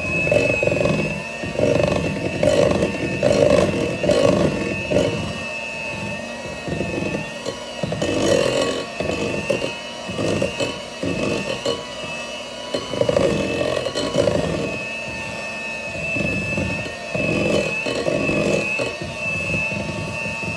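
Electric hand mixer running at a steady speed, its motor whining evenly while the beaters churn thick buttercream and knock irregularly against a glass bowl. This is the final mix to bring the buttercream fully together.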